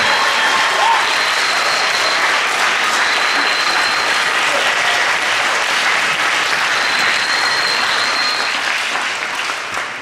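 Audience applauding after the piece, dying away near the end.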